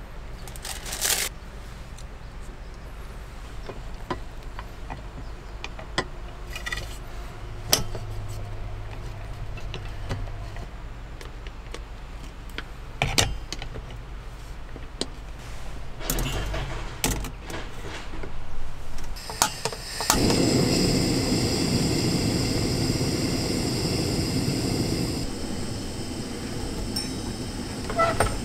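Metal clinks and clatter as a hot sandwich maker is filled and clamped shut, then a few sharp clicks and, about twenty seconds in, a small camping gas stove burning with a steady hiss under the press.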